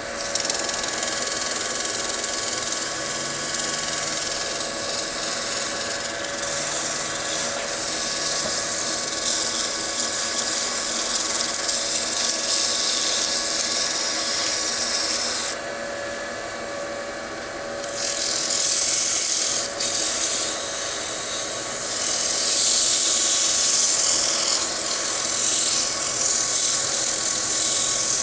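Wood lathe running with a steady hum while something is rubbed against the spinning wooden bowl, making a hiss. The rubbing lifts off for a couple of seconds about halfway through, then comes back louder.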